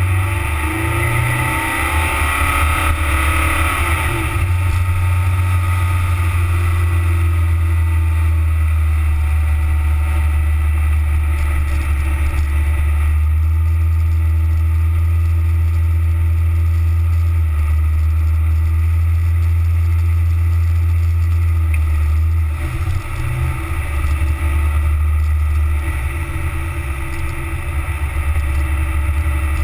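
Car driving slowly across beach sand, picked up by a camera mounted low on the outside of the body: a loud, steady low rumble of engine and tyres, with wind buffeting the microphone.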